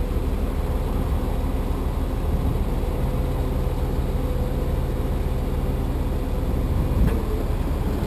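Freightliner M2 tow truck's diesel engine running with the PTO-driven hydraulics working as the wheel lift extends: a steady low drone, with an added low tone between about three and six seconds in and a short clack near the end.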